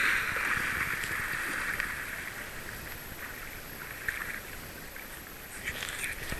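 Water splashing as a barbet dog swims out into a lake; the splashing is loudest at first and fades steadily as the dog paddles away.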